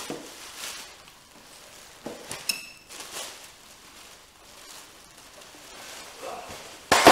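Cardboard box and plastic packaging being handled and rustled while a winch is unpacked, with a short ringing metallic clink about two and a half seconds in and a loud sharp snap near the end.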